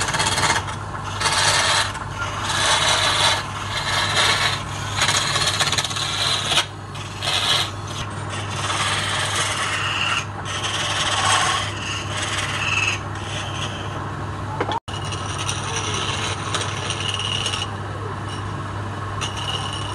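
Hand chisel scraping a spinning block of palm wood on a lathe: a rasping hiss that swells and fades with each pass of the tool, over the steady hum of the lathe running. The sound cuts out for an instant about fifteen seconds in.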